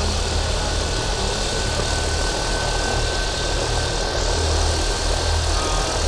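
Air ambulance helicopter running on the ground. Its turbine and rotor make a steady loud noise with a flickering low rumble, and a faint thin high whine runs through most of it.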